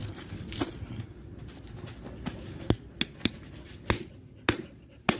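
Hammer striking a steel padlock to break it open: about eight sharp knocks at uneven intervals, several of them close together around the middle.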